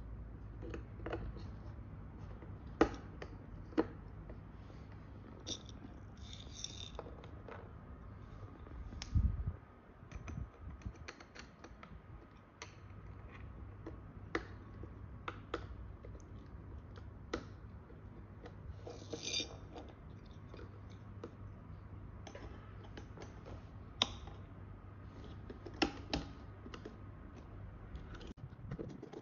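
Scattered small clicks and taps of hands fitting a motor and its screws onto a drone's carbon-fibre arm mount, with a few brief rustles, over a low steady hum. Near the end, a small hand screwdriver turns a screw into the mount.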